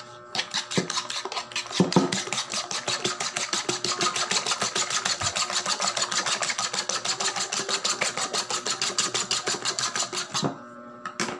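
Metal fork beating raw eggs in a bowl: fast, even strokes, each clicking against the bowl's side, that stop about a second before the end.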